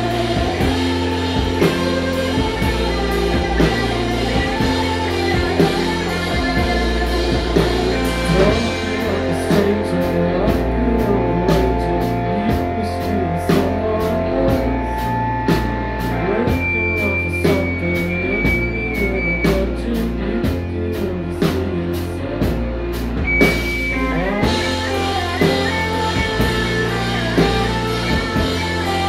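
Live indie rock band playing: electric guitars, bass guitar and drum kit. For a long stretch in the middle the cymbal wash falls away, leaving evenly spaced sharp drum hits under the guitars, and the full band comes back in near the end.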